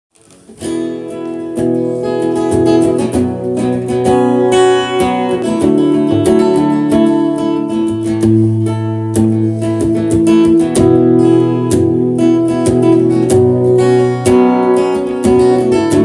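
Acoustic guitar with a capo, strummed in a steady rhythm of chords. It starts about half a second in.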